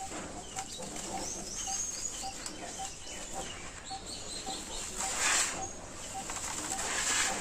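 Dry roasted dirt crumbling by hand, a gritty crunch that swells louder twice in the second half. Small birds chirp faintly, and a faint ticking repeats about four times a second.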